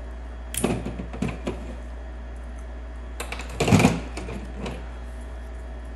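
Sharp metallic clicks and clacks from pliers working spot-welded nickel strip off 18650 lithium cells, with a louder clatter about three and a half seconds in as the pliers and loose cells are set down on the workbench.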